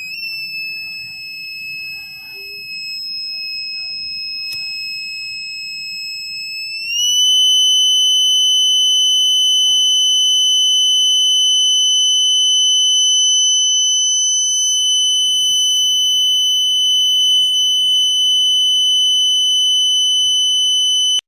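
Buzzer of a simple fire alarm circuit sounding a continuous high-pitched alarm tone. About seven seconds in, it steps up slightly in pitch and gets louder. Near the end it stops abruptly.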